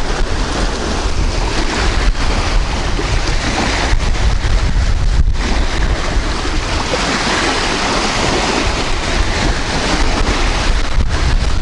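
Strong wind buffeting the microphone: a loud, steady rush of noise with heavy low-pitched buffeting throughout.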